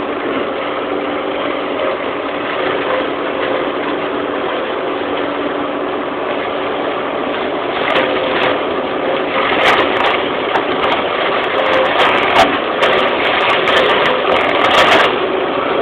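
Tractor engine running steadily with its hydraulic boom-mounted flail mower driven. From about eight seconds in, many sharp cracks and clicks as the flail head cuts into the hedge.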